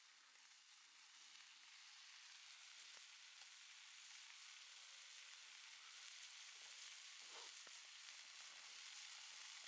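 Faint, steady sizzling hiss that grows a little louder, with a few soft ticks about three seconds in and again near the end.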